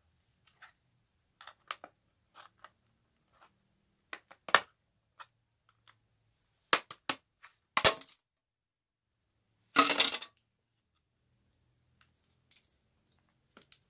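Plastic back cover of a cheap tablet being pried off by hand, its snap clips popping loose in a string of sharp clicks and cracks. The loudest are a few snaps around the middle and a quick burst of them about ten seconds in.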